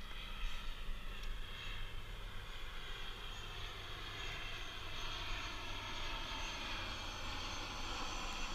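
A steady distant engine drone, its pitch slowly falling, over low wind rumble on the microphone.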